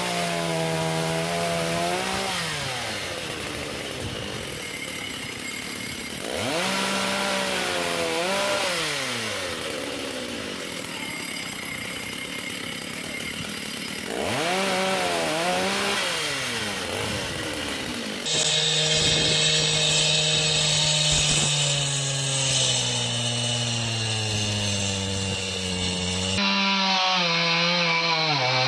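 Two-stroke chainsaws cutting through fallen tree limbs, the engines revving up and dropping back again and again. The sound changes abruptly a few times, as separate takes of saws at work follow one another.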